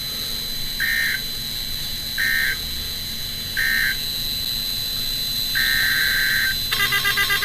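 NOAA Weather Radio EAS digital data bursts, a buzzy two-tone warble: three short bursts about a second and a half apart, then a longer burst about five and a half seconds in. Just before the end a rapid pulsing tone sets in.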